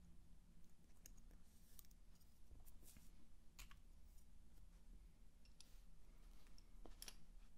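Faint, irregular clicks of wooden Honiton lace bobbins knocking against each other as they are picked up and laid down, over a low background hum.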